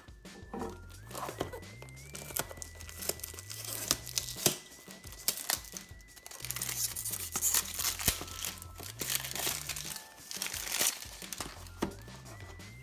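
Packaging being handled and torn open, with irregular crinkling, rustling and sharp tearing. Background music with a steady bass line plays throughout.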